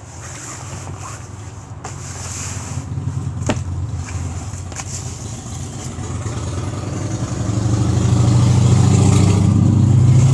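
An engine running with a steady low hum that grows louder over the last few seconds, with a few sharp clicks earlier on.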